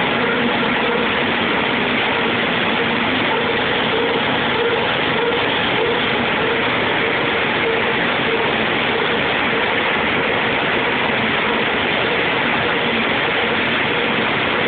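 A machine running steadily, a continuous even noise with a faint steady hum through it.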